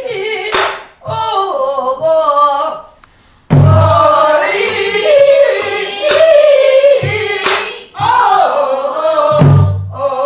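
A woman sings a Korean Namdo folk song in a strained, pansori-style voice with heavy vibrato, accompanying herself on a buk barrel drum. Deep thuds on the drumhead and sharp cracks of the stick mark the beat, and there is a short pause in the singing about three seconds in.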